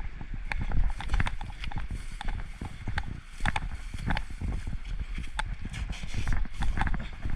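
Stones knocking and clacking together in irregular sharp clicks, several a second, as rocks are shifted on a stream bed while sniping for gold, over a steady low rumble.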